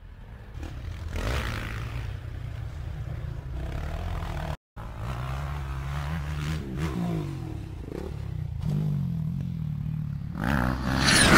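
Dirt bike engines running and revving, with a hard cut in the sound about halfway through. A louder rush of sound comes in near the end.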